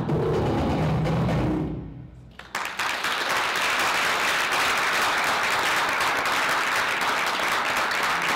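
Dance music fades out about two seconds in, and half a second later an audience starts applauding and keeps clapping steadily.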